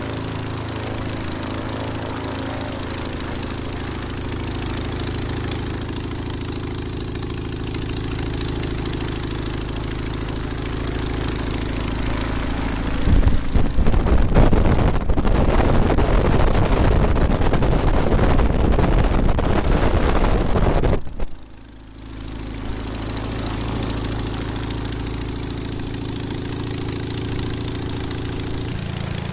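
A 1037cc half-VW two-cylinder air-cooled aircraft engine running steadily on a test stand, turning a 54x20 propeller. About 13 seconds in, a louder rush of air noise swamps the engine for about eight seconds, then drops away abruptly and the steady engine sound comes back.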